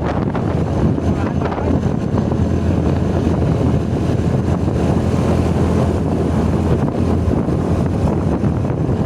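Wind buffeting the microphone: a loud, steady, low rumble with no breaks.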